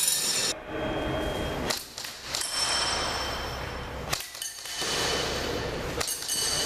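Airsoft gun firing several separate shots.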